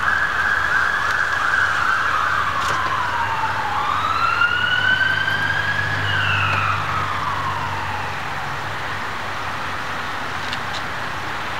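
A siren wailing: one tone that slides down, rises again about four seconds in, then falls away. Under it a car engine hums low as the car pulls up and stops.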